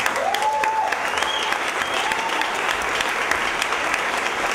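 Audience applauding steadily, with a couple of short cheers from the crowd.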